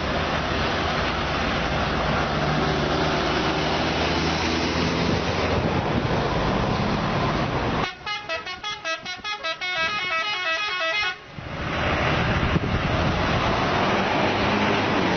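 Indonesian 'telolet' bus horn playing a fast, stuttering multi-note tune for about three seconds midway through, between stretches of loud steady road and engine noise.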